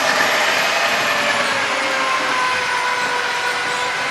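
Electric power tool running steadily under load, a loud grinding noise with a high motor whine whose pitch sags slightly over the few seconds.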